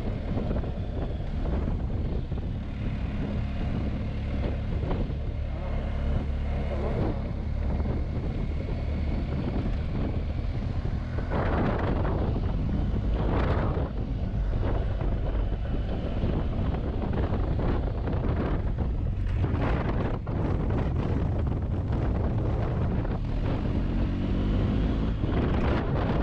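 Large adventure-touring motorcycle under way, its engine running steadily beneath wind rushing over the microphone, the wind surging louder for a few seconds around the middle.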